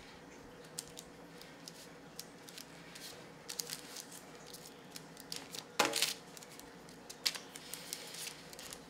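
Scattered light clicks and taps of kitchen handling as baked whoopie pie halves are flipped over on a tray, with one louder knock about six seconds in.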